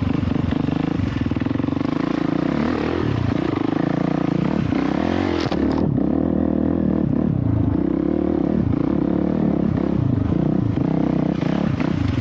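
A 450 dirt bike's engine working under load on a hill climb, its pitch rising and falling as the throttle is opened and eased.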